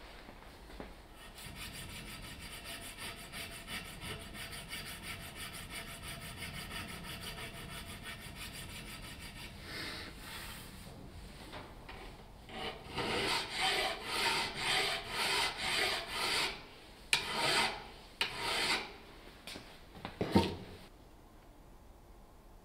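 Hand file rasping across a cast metal jack part clamped in a bench vise, in a run of separate strokes at about two a second. Before that comes a steadier, finer scraping. A sharp knock near the end is the loudest sound.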